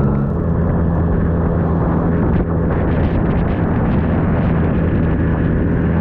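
Motorcycle engine running steadily at road speed, mixed with a dense rush of wind and road noise. A higher engine note drops away just after the start.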